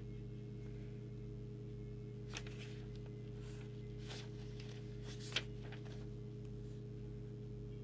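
Sheet of paper rustling as a large folded instruction leaflet is flexed and handled: a few soft rustles from about two seconds in, with one sharper crackle a little past five seconds. A steady low hum sits underneath throughout.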